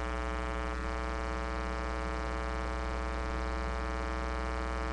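Steady electrical hum with a buzz of many overtones, unchanging throughout, typical of mains hum picked up by the recording.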